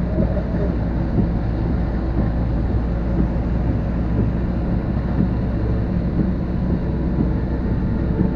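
Storm wind buffeting the microphone: a steady low rushing noise that swells and dips slightly from moment to moment.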